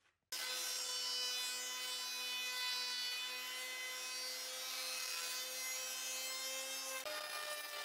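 Stationary jointer running while a wooden board is fed across its cutterhead: a steady machine whine over the hiss of wood being planed. The pitch shifts slightly about seven seconds in.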